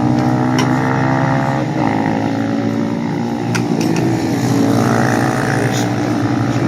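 Motorcycle engines running steadily, their pitch drifting slowly, with a few sharp clicks over them.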